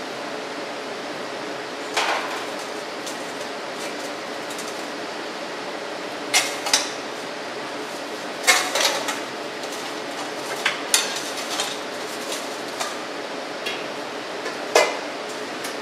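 Scattered metallic clanks and clinks of a stainless steel bowl and metal pans being set down and handled, a dozen or so sharp knocks at irregular intervals, over a steady background hum.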